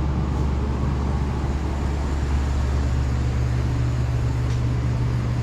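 A steady low hum that holds at one level and pitch, with no knocks or changes.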